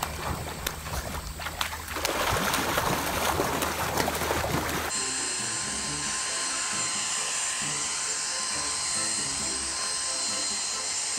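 Water splashing and rushing for about the first five seconds, then a cordless stick vacuum cleaner starts running with a steady high whine on carpet. Faint background music plays under both.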